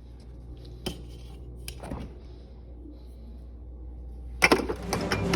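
Dishes and cutlery clinking now and then over a steady low hum, with a louder run of knocks and clatter about four and a half seconds in.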